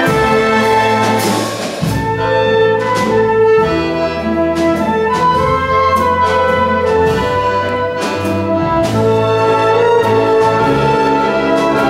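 Chamber orchestra playing live: strings, accordion and drum kit, with a trumpet playing over them and sharp drum strokes now and then.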